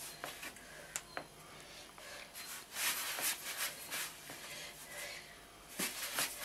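Hands pressing and rubbing balls of dough flat on a floured wooden board: soft scuffing strokes, heaviest in the middle and again near the end, with a couple of light taps about a second in.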